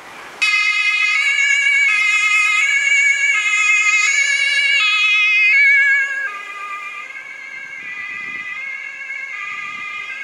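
German two-tone emergency vehicle siren (Martinshorn) sounding its alternating high–low tones, each held about two-thirds of a second. It cuts in suddenly about half a second in, and about six seconds in it drops in level as the vehicle moves away while the two tones continue.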